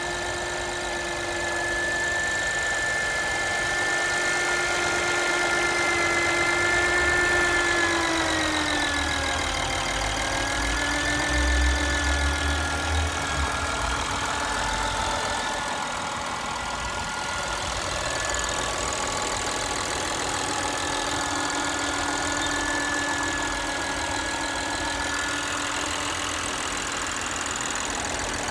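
Lexus GS300's 3GR-FSE V6 engine idling, with a steady whine-like set of tones that drop together in pitch about eight to ten seconds in and then hold steady. It is an unexplained extraneous noise that the owner is trying to have identified.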